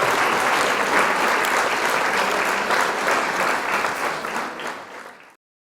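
Applause: many hands clapping, fading away over the last second or so and then cutting to silence.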